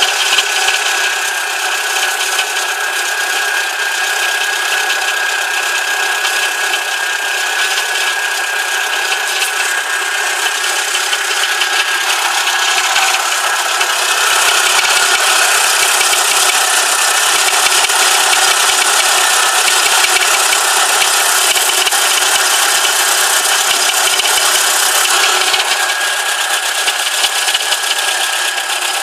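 VW Corrado G60's supercharged four-cylinder engine running with a steady knocking rattle and a steady high whine. The uploader puts the knock down to worn rod bearings. It gets a little louder from about halfway through.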